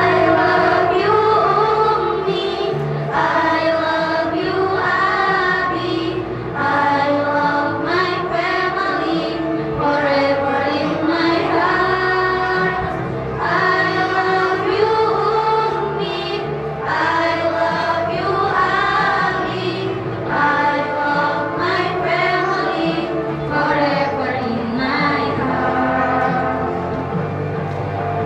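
A choir singing phrase after phrase over a steady, low-pitched musical accompaniment.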